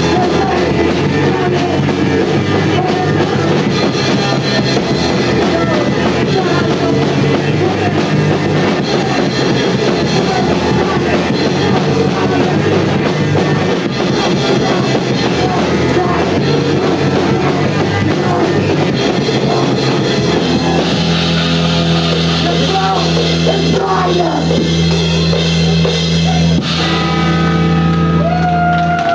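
Live rock band playing loud: electric guitars, bass and drum kit with vocals. Near the end the band holds one sustained, ringing chord.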